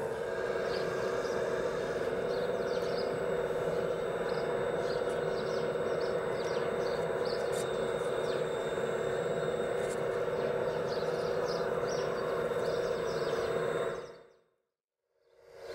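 Steady whine of an RC Liebherr A918 excavator's hydraulic pump, with birds chirping throughout. The sound fades out to silence about fourteen seconds in and fades back up just before the end.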